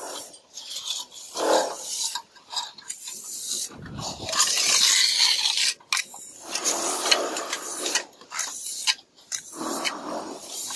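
Mason's trowel scraping and spreading mortar in a series of uneven rasping strokes, one long stroke about four seconds in.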